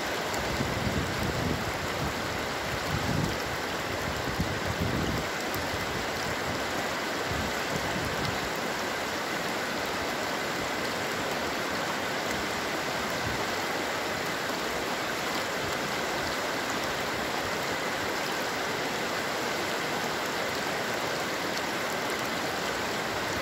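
Water pouring over a reservoir weir, a steady, even rush. A few low rumbles come through in the first five seconds.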